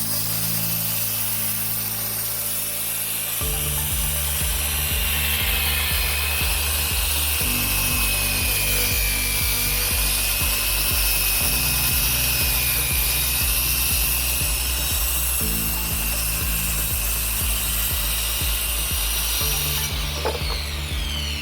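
Electric circular saw cutting through wood: a steady high whine that drops in pitch as the blade takes the load, then recovers. Background music with held bass notes and a steady beat plays under it.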